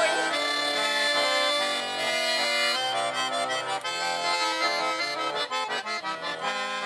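Accordion playing an instrumental break in a Russian folk song, held notes and chords at first, then a quicker run of short notes in the second half.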